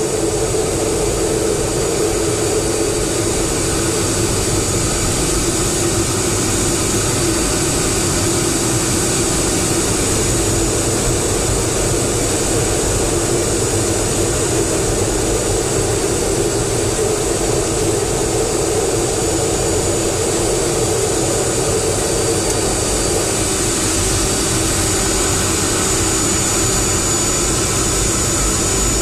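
F/A-18 Hornet jet engines and rushing air heard from inside the cockpit in flight: a steady loud roar with a thin high whine over it.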